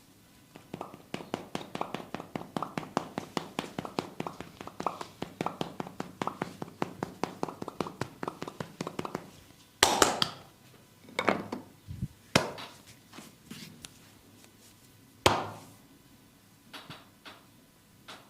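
Massage percussion by hand on the body: a fast, even run of chopping and tapping strikes, about five or six a second, for roughly eight seconds. This is followed by several louder single smacks spaced a second or more apart, of the kind this barber's skin-cracking technique produces.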